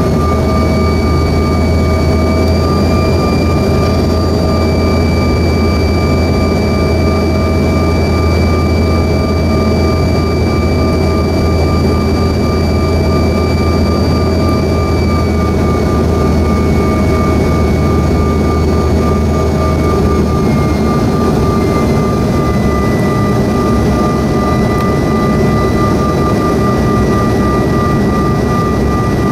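Cabin noise of a CRJ-700 airliner on approach, its rear-mounted GE CF34 turbofans running with a steady whine over a low rumble. The whine steps down in pitch about halfway through and again a few seconds later, and the deepest part of the rumble fades about two-thirds of the way in.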